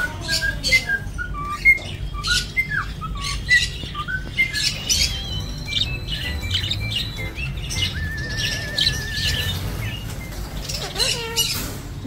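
Budgerigars chattering: rapid short chirps, clicks and squawks, with a wavering warbled trill a little past the middle.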